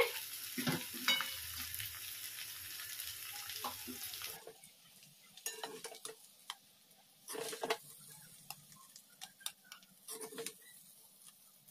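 Metal spatula scraping and tapping against a heavy-bottomed kadhai as fried potato bhujiya is scooped out, over a steady sizzle. The sizzle stops about four seconds in, leaving a few scattered scrapes and taps.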